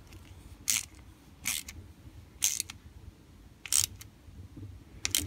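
Small socket ratchet tightening the nut on a carburettor fuel valve: five short clicking rasps about a second apart, one per ratchet stroke.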